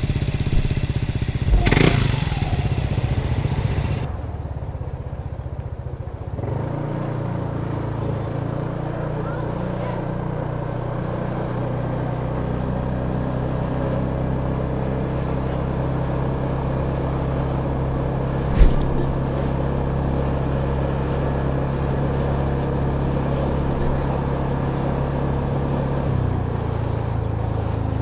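Kymco Downtown 350i scooter's single-cylinder engine running. It is louder and rougher for the first few seconds, then settles from about six seconds in into a steady drone that dips slightly in pitch near the end. There is a sharp knock about two seconds in and another about eighteen seconds in.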